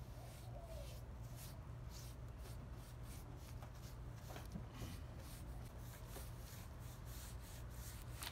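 Paintbrush scrubbing wood stain onto the end of a pressure-treated 2x4: a faint, irregular run of quick bristle strokes on the wood.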